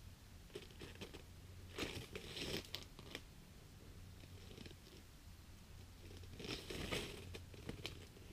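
Faint crunching and scraping of snow as a person shifts about on skis, in two short bursts about two seconds and seven seconds in, with a few sharp clicks between them.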